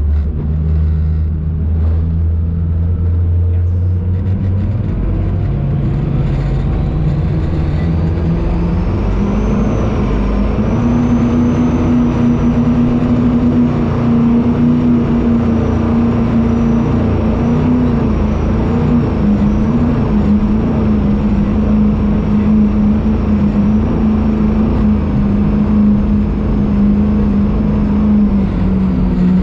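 Twin Mercury Racing 1550 twin-turbocharged V8s with M8 sterndrives, heard from inside the boat's cabin, pulling hard: the engine note climbs for several seconds with a high whine rising alongside, then holds steady at speed.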